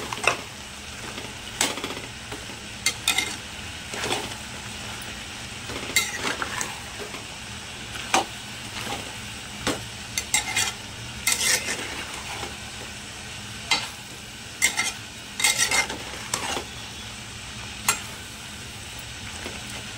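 A flat metal spatula stirring chicken and vegetables in a metal pot, scraping and clacking against the pot irregularly every second or so. Underneath is the steady sizzle of the mix frying with no water added.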